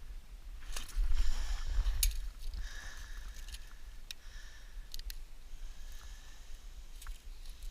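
Handling noises: a few sharp clicks and short scraping sounds, over a steady low rumble of wind on the microphone.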